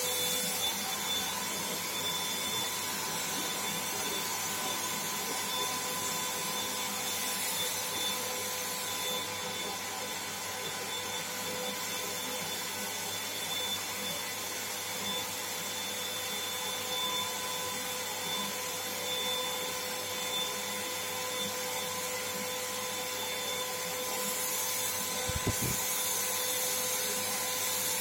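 Black & Decker HVLP400 electric paint spray gun switched on and running while spraying paint: a steady rushing air noise with a high motor whine. There is a brief knock near the end.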